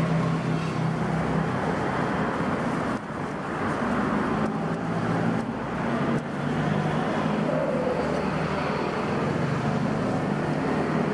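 Steady background noise of road traffic with a low, even hum.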